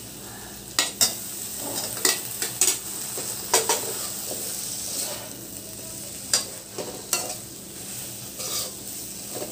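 Perforated steel spatula scraping and knocking against a kadai (wok) while fried potato pieces are stirred and sautéed into the spice masala. Short, irregular scrapes come about once a second over a steady low sizzle.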